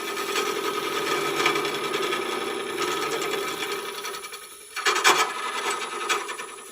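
Rounded carbide turning tool scraping a spinning wood-and-resin bottle stopper blank on a lathe, a steady rasping cut. It eases off after about four seconds, comes back as a sharp, louder scrape about a second later, then fades.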